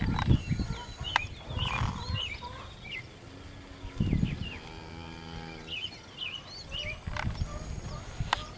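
A beef steer mooing once: one long, low, steady moo of about two and a half seconds, starting about three seconds in.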